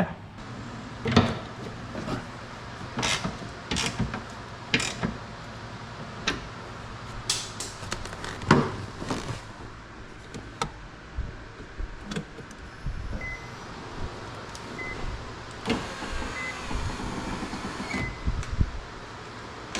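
Irregular clicks and knocks of hands and tools working on a car door's window assembly while the glass is fastened in place, over a faint steady hum; a short high beep repeats four times in the last few seconds.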